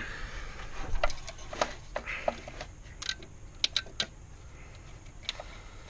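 Scattered light clicks and taps, irregular and a second or so apart, as a wrench and hand work at the alternator's wiring connector and 13 mm fasteners.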